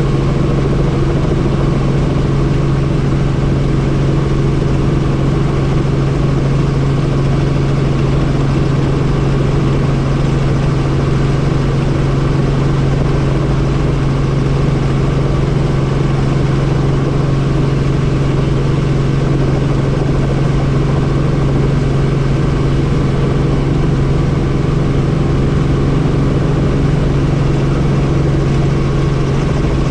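Helicopter in steady cruise, heard from on board: a loud, even drone with a strong low hum that holds constant in pitch and level.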